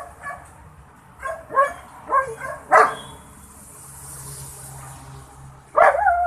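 Dogs barking from kennel cages in a series of short barks, then a pause of about three seconds and more barks near the end.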